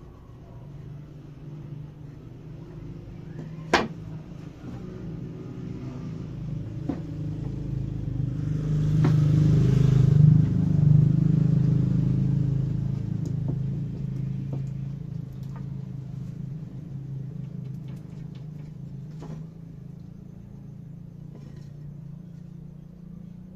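A low, steady engine rumble swells to its loudest about ten seconds in, then slowly fades away. Over it comes one sharp knock about four seconds in and a few light taps as the pine frame pieces are handled.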